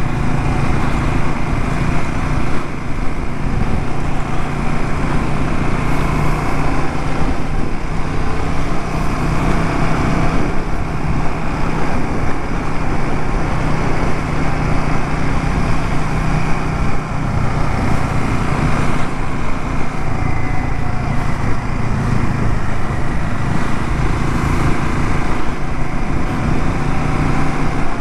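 Royal Enfield Himalayan 450's single-cylinder engine running steadily while riding, under an even rush of wind and road noise.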